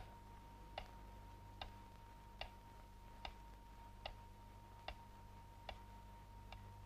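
Clock ticking faintly and evenly, a little faster than one tick a second.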